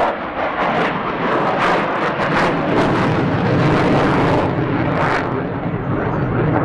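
Su-27 twin-turbofan jet fighter flying past: a loud, steady rushing jet noise with several sharp crackles through it.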